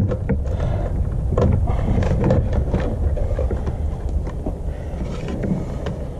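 Small clicks, taps and rustles as a grey plastic electrical box and its wires are handled and fitted over a conduit stub, over a steady low rumble.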